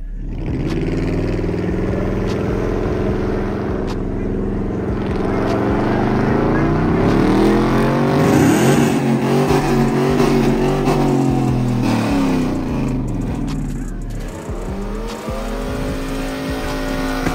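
Chevrolet Silverado pickup's engine revving hard through a burnout, the pitch climbing to a peak about halfway through and then dropping away. After a short break near the end, an engine revs up again.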